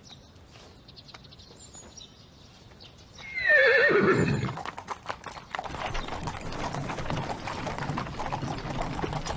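A horse whinnies loudly about three seconds in, the call falling in pitch over about a second, followed by a steady run of hooves clip-clopping.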